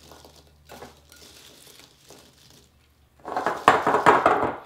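Slotted spoon stirring sugar-coated cranberries in a glass bowl: faint rustling at first, then, about three seconds in, a louder stretch of rattling and scraping as the berries tumble against the glass.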